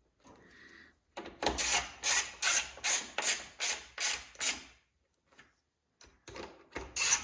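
Ratchet wrench worked in quick back-and-forth strokes, tightening fasteners as the saw's air filter is refitted. The pawl rasps about two and a half times a second, in two runs with a pause of about two seconds between them.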